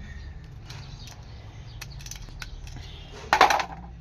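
Scattered light mechanical clicks and knocks, with one louder burst of clatter near the end, over a low steady hum.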